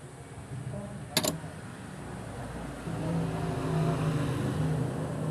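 A sharp click about a second in, then a vehicle engine running steadily, growing louder from about three seconds in.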